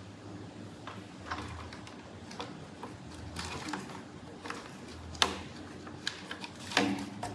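A plush cat tree being grabbed and climbed by a small monkey: scattered light taps, scrapes and rustles, with two sharper knocks about five and seven seconds in.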